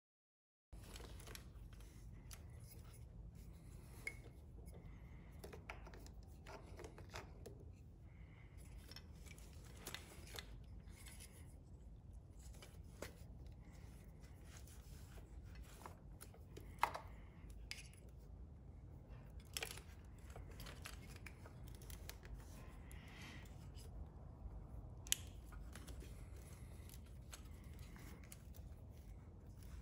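Faint small plastic clicks and rustling of wiring-harness connectors being handled: the crank position sensor connector unplugged and the Power Commander V connector fitted to it. A few sharper clicks stand out, the loudest about 17 and 25 seconds in, over a low steady hum.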